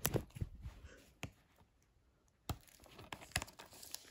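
Crinkling and clicking of a plastic Blu-ray case being handled and unpacked: scattered crackles, then a brief near-silent pause and a sharp click about two and a half seconds in, followed by more faint crinkling.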